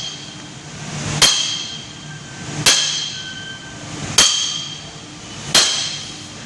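Small handheld sledgehammer tapping a metal concrete-mount bracket onto the foot of a fence post: four sharp, ringing metallic blows about a second and a half apart.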